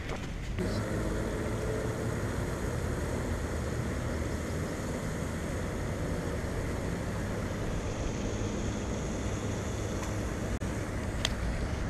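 Steady low rumble of wind buffeting the microphone, with a faint sharp click near the end.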